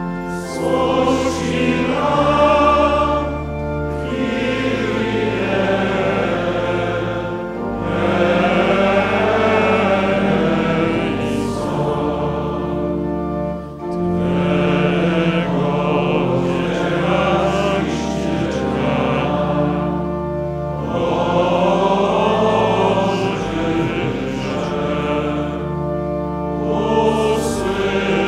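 A church congregation singing a hymn in slow phrases of several seconds with short breaks, over held low organ notes.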